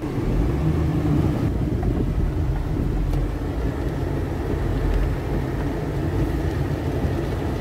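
Steady low rumble heard inside a moving car's cabin, from its engine and its tyres running over a rain-flooded road.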